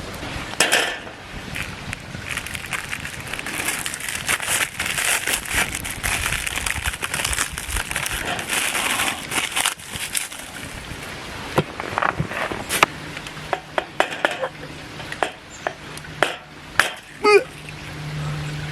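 Food sizzling in a pan for several seconds, then a series of separate clicks and knocks of a utensil against metal cookware, with one ringing clink near the end.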